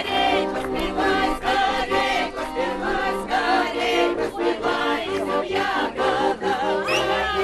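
A group of young people singing together without instruments, choir-like, holding steady notes under a moving tune.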